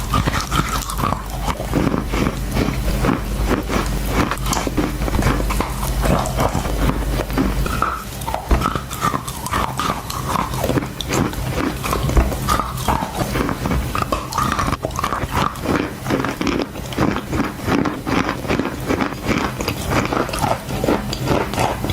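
Close-miked chewing of crunchy chalk: a dense, continuous run of crisp crunches and crackles.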